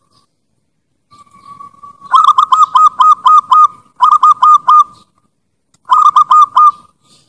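Bangkok-type zebra dove (perkutut) singing: a soft held note, then three runs of rapid staccato coos, about seven, four and four notes, with short pauses between.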